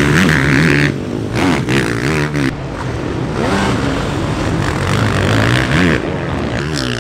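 Beta 450 four-stroke motocross bike being ridden hard on dirt, its engine pitch rising and falling over and over as the throttle is opened and shut.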